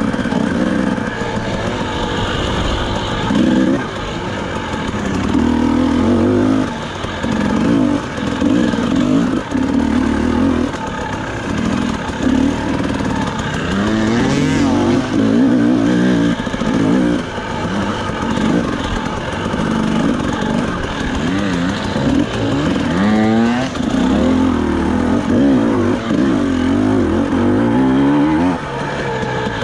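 FPV quadcopter motors and propellers buzzing, the pitch rising and falling continually with throttle changes, with a quick rising whine about three-quarters of the way through.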